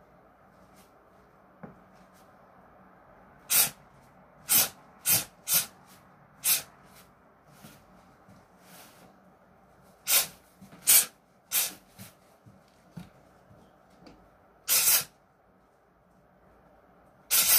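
Sharp hissing breaths forced out with punches while shadowboxing, about ten in all, single or in quick runs of two to four, with one longer hiss about fifteen seconds in.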